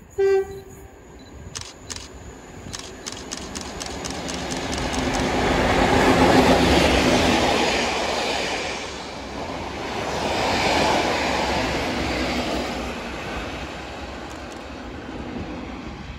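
Train of two Colas Rail class 37 diesel locomotives, 37025 and 37116, top-and-tailing yellow test coaches, passing at speed: a short horn toot just after the start, a quick run of wheel clicks over the rail joints, then engine and wheel noise swelling to a peak about six seconds in and again about eleven seconds in before fading away.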